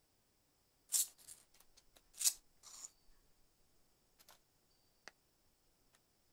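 Paper Zippo replacement-wick packet being torn open and the cotton wick pulled out: a few crisp paper rustles and tears, loudest about a second in and again just after two seconds, followed by a few light ticks.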